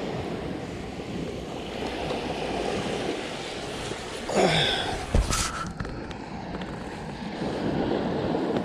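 Steady surf and wind noise on the microphone. A brief pitched sound that falls in pitch comes just past four seconds, followed by a sharp thump about five seconds in.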